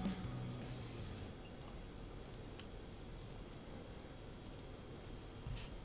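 A few scattered, light clicks over faint room tone.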